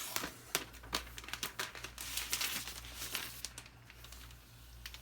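Plastic packaging crinkling and rustling as it is handled, with small clicks and crackles, dying down about three and a half seconds in.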